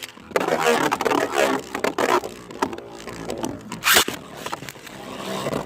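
Two spinning Beyblade tops, a 3D-printed one and a Slash Valkyrie, grinding and scraping against each other in a plastic stadium. They clash repeatedly, with one loud hit about four seconds in.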